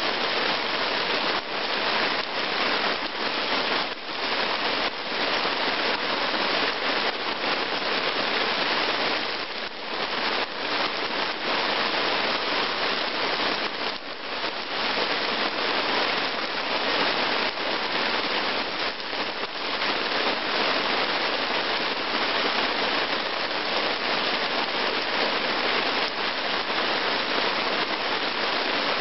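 Heavy, steady rain falling onto puddled ground.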